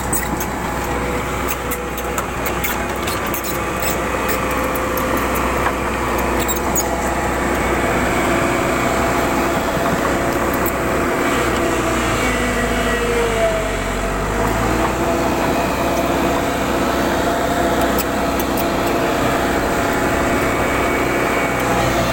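JCB backhoe loader's diesel engine running steadily, with its pitch shifting briefly about halfway through.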